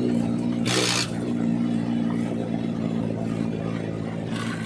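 Mahindra tractor's diesel engine running steadily with no silencer fitted, the open exhaust sound loud and unmuffled. A short hiss cuts in about a second in and again near the end.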